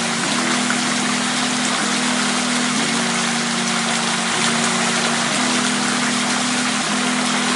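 Steady hiss of flowing stream water, under background music whose low held notes change pitch every second or so.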